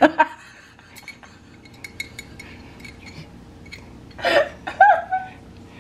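Small metal clinks and ticks against a glass wine bottle as a nail and dime are worked at its neck. A sharp clink comes right at the start, and fainter scattered taps follow. A person's voice is heard briefly about four seconds in.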